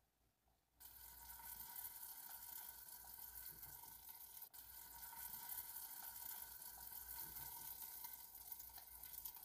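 Chicken wings sizzling faintly and steadily in oil in a frying pan covered with a glass lid over low heat. The sizzle starts about a second in.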